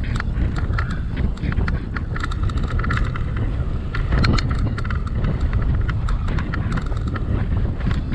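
Wind rushing over the microphone of a camera riding on a moving bicycle, a steady low rumble with irregular clicks and rattles scattered through it.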